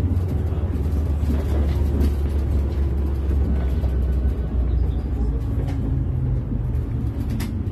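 Iveco Urbanway 18M articulated city bus driving, heard from inside the passenger cabin: a steady low engine and road rumble, with the engine note shifting about five seconds in and a sharp click near the end.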